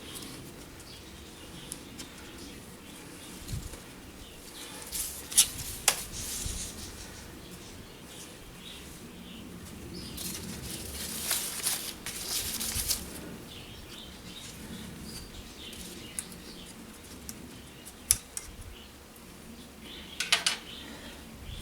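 Bonsai pruning: several sharp snips of a cutting tool, with rustling of twigs and foliage in between.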